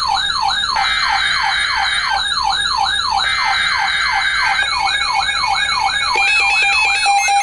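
Electronic alert siren sounding as the attention signal of an emergency broadcast warning: rapid falling yelps, about three a second, with a steady higher tone switching on and off over them. Past the middle a steady lower tone and stepped electronic beeps join in.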